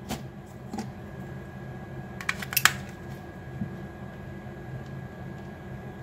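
Small plastic clicks and taps as AA batteries are pressed into a Panasonic air-conditioner remote's battery compartment, with a louder cluster of two or three sharp clicks about two and a half seconds in.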